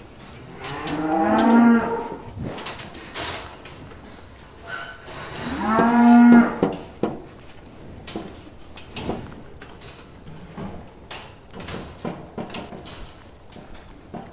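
Japanese Black cattle mooing: two long moos about four seconds apart, each rising in pitch and then holding. Scattered light knocks and clicks come between them.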